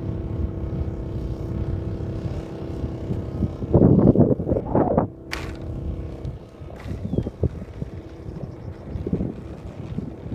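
Model airplane's motor running at a steady pitch under heavy wind buffeting on the microphone, with the loudest gusts about four to five seconds in. The motor tone drops away about six seconds in, leaving wind rumble.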